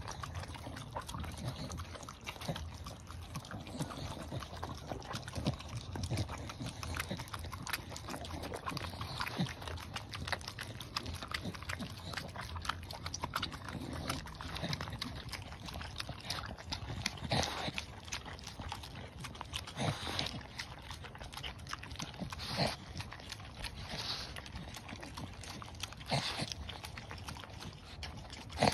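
Staffordshire bull terriers licking and lapping minced raw meat from rubber lick mats: a steady run of wet tongue-and-mouth clicks, with a few louder clicks in the second half.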